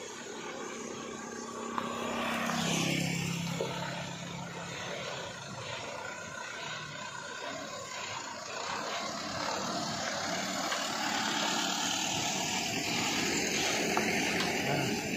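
Truck's diesel engine running as the truck drives slowly past close by on a rough dirt road.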